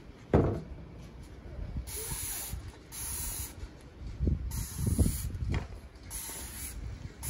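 A spray nozzle hissing in about five short bursts, each roughly half a second, starting about two seconds in. A loud thump comes near the start, and lighter knocks of handling follow between about four and five and a half seconds.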